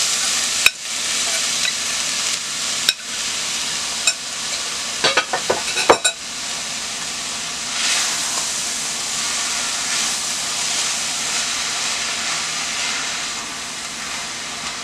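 Shredded salt codfish and vegetables sizzling in oil in a pot while being stirred, with several sharp knocks and clinks of the stirring spoon against the pot in the first six seconds.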